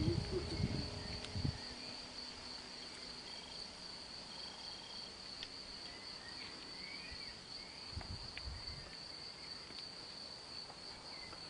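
Insects trilling steadily on one high pitch in the background. A few low rumbles and thumps come near the start and again about eight seconds in.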